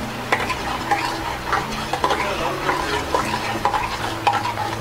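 A metal spoon stirring a thick milk and mango-pulp mixture in a metal pot, scraping and clinking against the pot's sides about twice a second.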